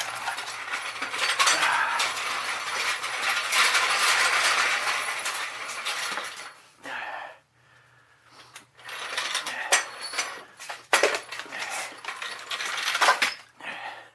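Metal tools and parts clinking and jangling, a dense rattling clatter for about six seconds, then a string of separate sharp clanks.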